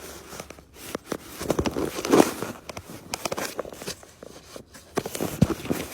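Irregular scuffing, rustling and light knocks, like close handling or movement.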